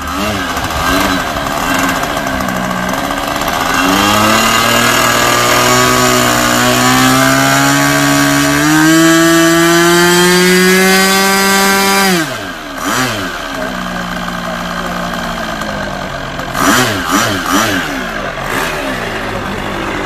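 Small single-cylinder engine of an RC model airplane running on the ground. It is throttled up slowly, its pitch climbing steadily for several seconds, then drops back sharply about twelve seconds in and is blipped up and down a few times near the end.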